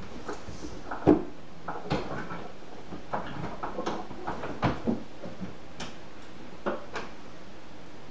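Scattered light knocks and clicks at irregular moments, the loudest about a second in, over a steady background hiss.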